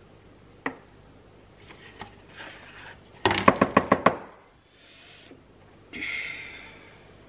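Kitchen utensil and dish clatter: a single click, some handling noise, then a quick run of about seven sharp knocks in under a second, and near the end a short scraping rustle.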